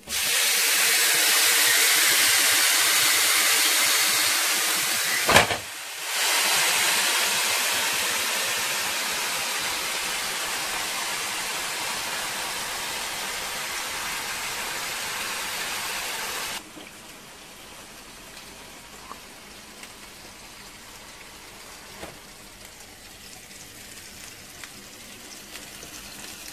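Marinated trout fillet sizzling and steaming on the hot plates of a Tefal electric contact grill: a loud, even hiss. A single sharp knock comes about five seconds in, the hiss briefly dips and then resumes, slowly fades, and cuts off suddenly about two-thirds of the way through, leaving only a faint hiss.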